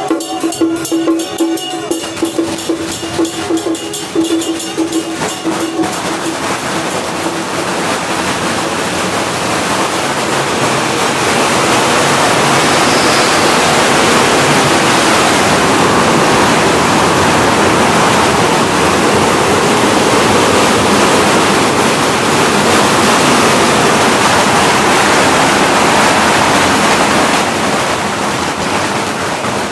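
Procession percussion with a steady held note for the first few seconds. Then a long string of firecrackers sets off a dense, continuous crackle that builds over a few seconds and holds loud until near the end.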